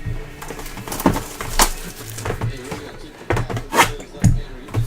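Trading cards and foil pack wrappers being handled: a string of about seven sharp crackles and snaps at irregular intervals.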